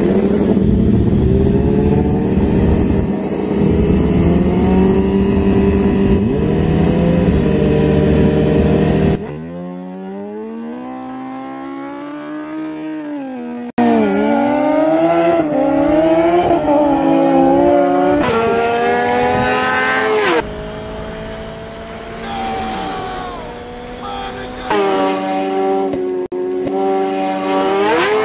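Sport motorcycle engines revving hard, their revs rising and falling, then launching and accelerating away with the pitch climbing. The sound changes abruptly several times.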